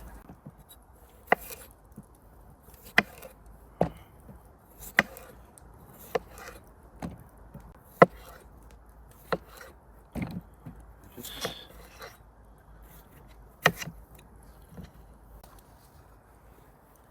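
Knife chopping on a cutting board: about a dozen separate sharp strokes at an uneven pace, roughly one a second.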